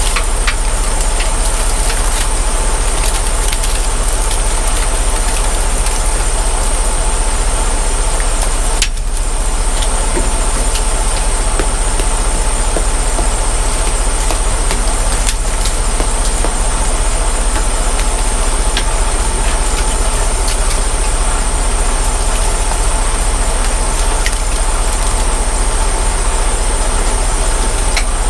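Diesel semi-truck engine idling steadily with a deep low hum and a steady whine, with scattered light knocks and clicks here and there and a brief dip about nine seconds in.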